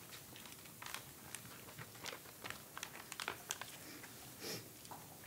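Faint, scattered clicks, taps and rustling of papers and laptop keys being handled at a desk, irregular with no steady rhythm.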